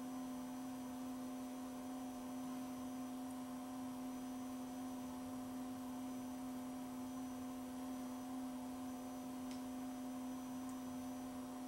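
Steady electrical hum: one low tone with fainter higher overtones, unchanging throughout. A faint click about nine and a half seconds in.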